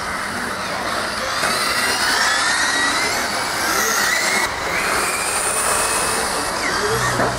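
Several 1/8-scale radio-controlled rally cars racing, their motors whining up and down in pitch as they accelerate and slow through the corners, over a steady rushing noise.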